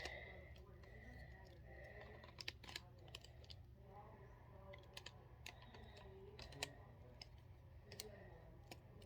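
Faint, irregular clicks of the segments of a fidget snake toy being twisted by hand.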